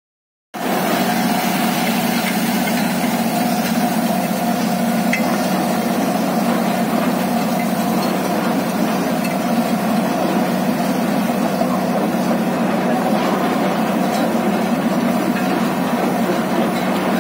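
Truck-mounted borewell drilling rig running steadily while drilling, a loud, even mechanical drone with a steady hum, starting abruptly about half a second in.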